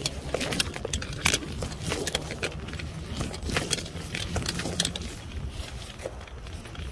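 Irregular metallic clinks and rattles of tower-climbing gear during a descent, over a steady low rumble of wind on the microphone.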